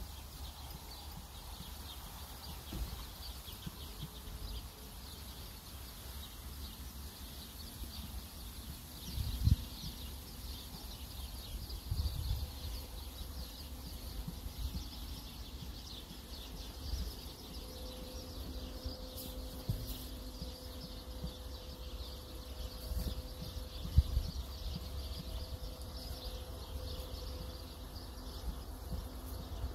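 Outdoor ambience: a steady high chirping of birds and insects over a low rumble, with a few soft thumps. A faint steady hum comes in a little past the middle.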